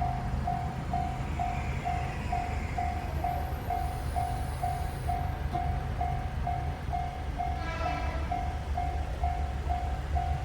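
Japanese level-crossing bell ringing its repeated 'kan-kan' tone at about two strokes a second, over the low rumble of a train running through the crossing. A brief higher-pitched tone sounds about eight seconds in.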